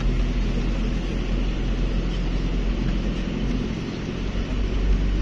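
Steady running noise of a vehicle travelling slowly: a low, even engine hum with road and wind noise, unbroken throughout.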